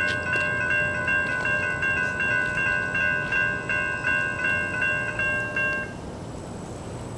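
Railroad crossing warning bells (Safetran and GS Type 3 electronic bells) ringing in a fast, steady repeat of about two and a half strokes a second while the gates lower. They cut off suddenly about six seconds in, as the gate arms come down level.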